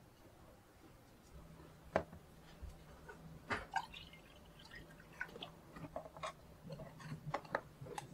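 Water poured into a drinking glass about four seconds in, amid a few sharp taps and light clinks of glass and tableware.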